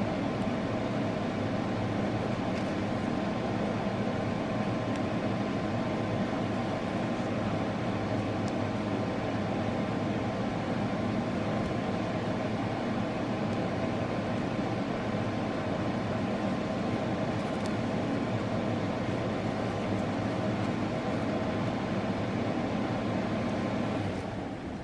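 Steady mechanical hum with a thin high tone running through it, dropping in level near the end.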